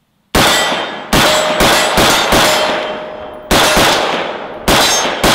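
AR-15 rifle in 5.56 with a VG6 Epsilon muzzle brake firing semi-automatic, about nine shots at an uneven pace with short pauses. A steel gong target rings in a steady tone under the shots after being hit.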